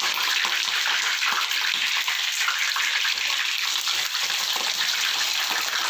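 Hot oil sizzling and crackling steadily around frozen mini hash browns as more pieces are laid into the pan.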